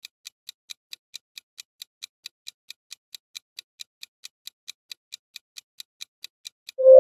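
Ticking-clock countdown timer sound effect: even, sharp ticks about four a second, marking the time left to choose. Near the end the ticking stops and a rising keyboard chime begins as the timer runs out.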